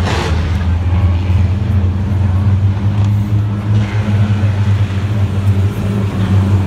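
A pack of compact-class race cars running around the oval together, their engines blending into a steady low drone as the field comes past the grandstand.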